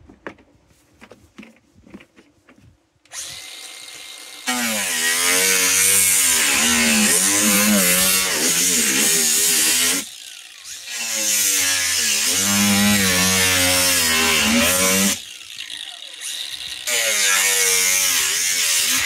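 Cordless drill cutting into a plastic cat-litter bucket in three long runs, the motor's pitch wavering up and down as it loads up, with light clicks of the bucket being handled just before.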